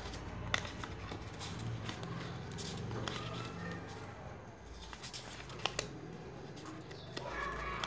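Sheet of paper rustling and crinkling as hands fold and crease it into a paper boat, with a few sharp crackles, about half a second in and again between five and six seconds in.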